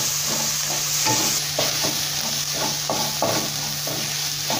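Onion-tomato masala sizzling in a non-stick kadai while a utensil stirs and scrapes through it, with irregular scrapes a few times a second over a steady frying hiss. The tomato has just gone in and is being sautéed into the masala.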